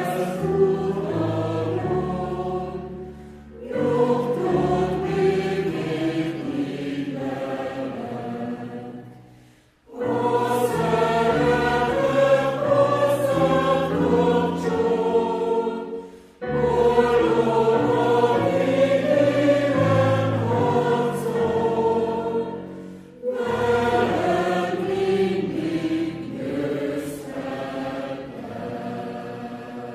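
Choir singing a hymn in harmony, in phrases several seconds long with brief pauses between them.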